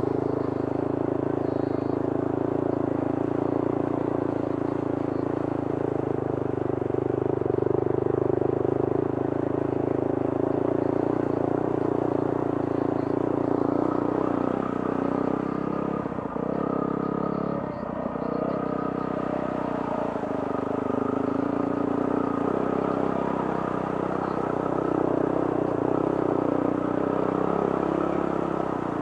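Yamaha WR250R's single-cylinder four-stroke engine running steadily as the dirt bike ploughs through deep flood water, with water splashing up around the front wheel. The engine eases off and picks up again a little past halfway.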